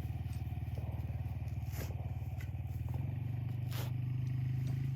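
Engine idling steadily, getting a little louder about three seconds in, with a couple of faint scrapes.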